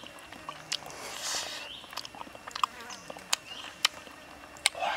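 Close-up eating sounds: a man chewing grilled chicken, with scattered sharp wet clicks and smacks. There is one breathy rush of air about a second in, like blowing on or sucking in over hot, spicy food.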